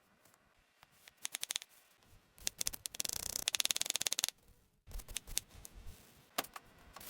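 Kitchen food-prep handling sounds: short runs of sharp clicks, then a dense rattling clatter of rapid clicks lasting about two seconds in the middle, and a few scattered clicks near the end.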